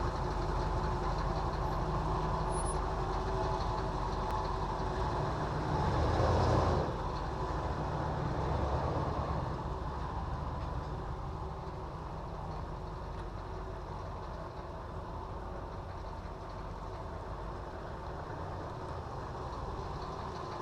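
A steady motor hum, with a brief louder swell about six to seven seconds in, then running on a little quieter.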